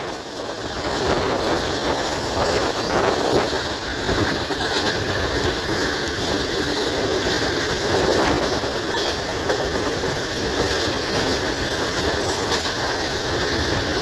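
Passenger train coaches running on the track, heard from a window of the moving coach: a steady rushing running noise with wheels clattering over the rail joints.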